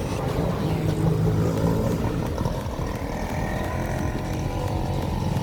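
Motorcycle engine running steadily, with a fast even pulsing beat.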